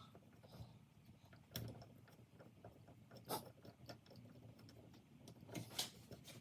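Near silence, broken by a few faint, scattered clicks and taps of hand tools and small engine parts being handled, one about a second and a half in, one near the middle and a couple near the end.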